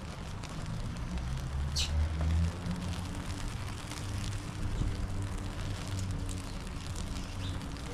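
Rum-and-brown-sugar sauce sizzling and crackling around banana halves in a steel pan as the alcohol burns off, over a low steady rumble.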